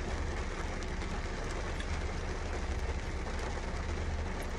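Steady low rumble and hiss of a car's interior, with faint chewing.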